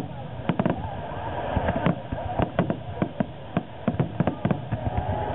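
Aerial firework shells bursting in a rapid, irregular barrage of sharp bangs, about four a second, over a steady rumble.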